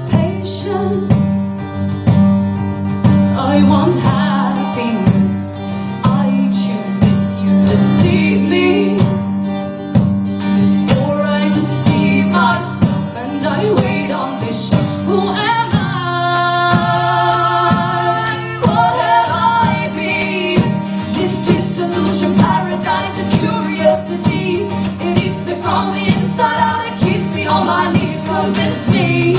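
Live song: a woman's singing over a strummed guitar, with a long held vocal note about halfway through.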